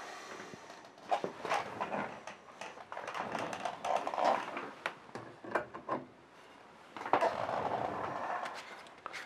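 Brush strokes scuffing across a painting at an easel, in three short spells of scratchy rustling, with scattered clicks and knocks of tools handled against wood.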